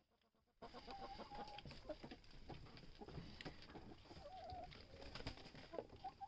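Chickens clucking, with short pitched calls and small clicks, starting abruptly about half a second in after near silence.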